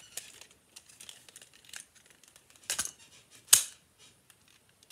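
Plastic clicks and clacks from a red toy firecracker gun being handled, with two sharper snaps a little under three and about three and a half seconds in.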